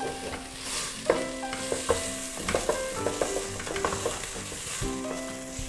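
Wooden spoon stirring and scraping a thick tomato and onion sauce frying in a stainless steel pot, with a steady sizzle and a few sharp knocks of the spoon against the pot.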